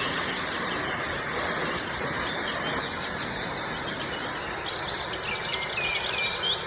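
Waterfall rushing steadily, with small birds chirping over it, most of all near the end.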